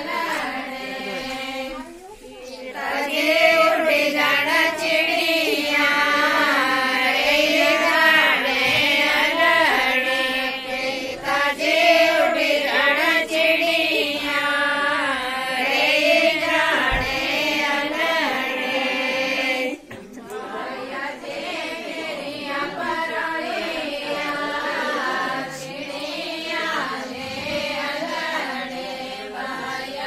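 A group of women singing a Pahari suhag wedding folk song together. There is a brief pause about two seconds in, and the singing becomes quieter about two-thirds of the way through.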